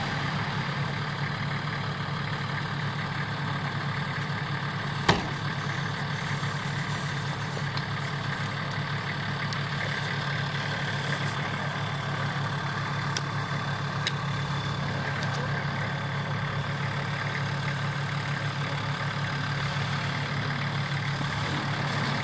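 Off-road SUV engine idling steadily, with one sharp click about five seconds in.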